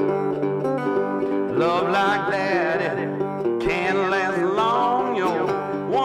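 Background country-style music with plucked strings (banjo and guitar), a wavering melody line entering about a second and a half in.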